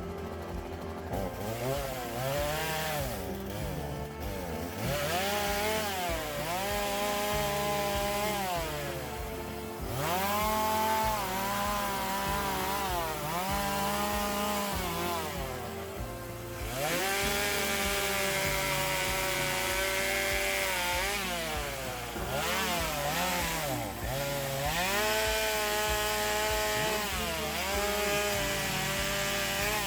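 Background music: a lead line that slides up and down in pitch over steady held bass notes.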